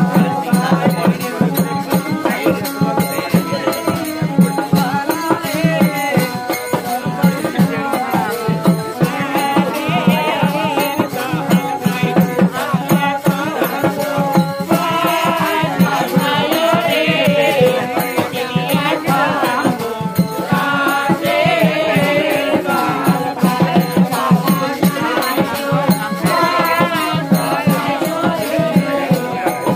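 Live Bengali folk music for Satya Pir gaan: a wavering melody over fast, steady rattling percussion, playing on without a break.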